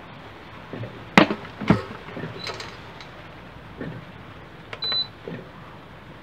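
Knocks and clicks from handling the electric rice cooker, two sharp ones about a second in, and a short high beep from its control panel just before the five-second mark.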